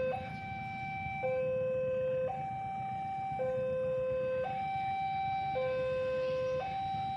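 Electronic railway level-crossing warning alarm sounding a two-tone hi-lo signal, switching between a lower and a higher tone about once a second, warning that a train is coming. A low rumble runs underneath.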